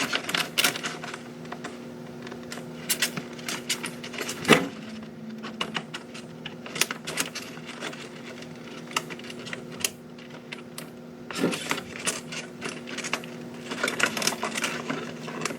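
Irregular clicks and taps of small plastic gear-drive parts being handled and greased, over a steady low hum.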